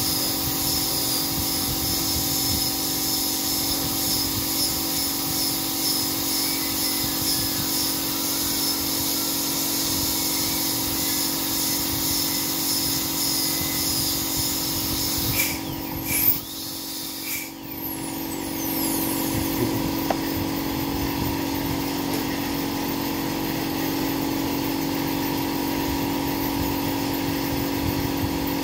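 Dental drill handpiece running with a steady high whine as it grinds down the upper teeth to take porcelain caps. About halfway through it stops briefly, its pitch sliding, and then starts again.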